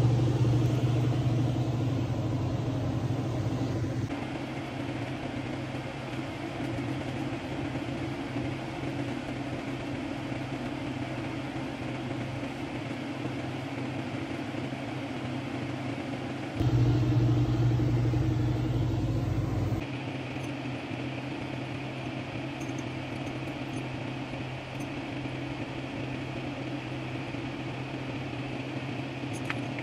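A steady low machine hum, louder for about the first four seconds and again for about three seconds after the middle, changing level abruptly at each switch.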